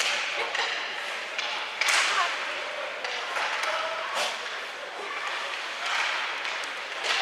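Thuds and knocks of play echoing in a large hall, about five sharp hits, with players and spectators calling out.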